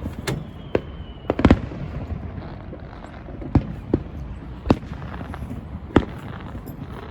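Distant fireworks going off: about seven sharp, irregularly spaced bangs over several seconds, each with a short echoing tail. A thin high whistle slides slowly down in the first second or so.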